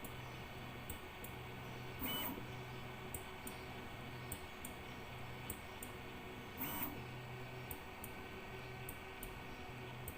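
3D printer stepper motors running a bed mesh calibration with a Klicky probe: short moves between probe points with a low hum that starts and stops, faint ticks, and two louder taps, about 2 seconds in and again near 7 seconds, as the probe comes down on the bed.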